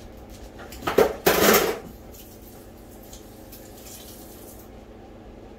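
Kitchen dishes and utensils clattering: a sharp clink about a second in, then a brief louder rattle, with a few faint clinks after.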